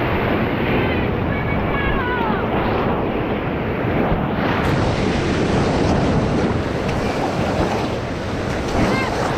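Whitewater rapids rushing loudly and steadily, with wind buffeting the microphone.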